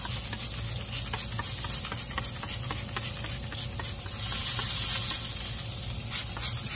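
Steady hiss with scattered small crackles from inside a Green Mountain Grills pellet smoker with its lid open on a cooking brisket, over a low steady hum. The hiss swells for about a second a little past the middle.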